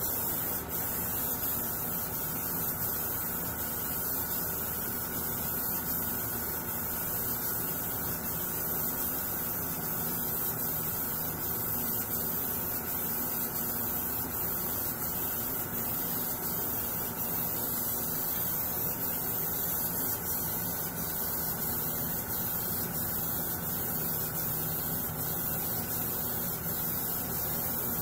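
Steady hum and rushing air of a paint spray booth's ventilation, with the hiss of an airbrush spraying paint onto a plastic RC truck body.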